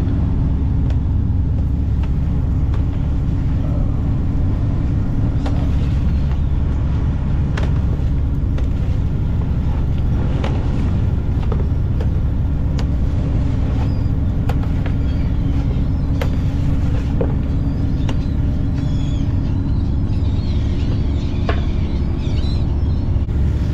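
Shrimp trawler's diesel engine running with a steady low drone. Scattered clicks and scrapes come from a plastic shovel pushing shells and bycatch across the deck. Gulls call near the end.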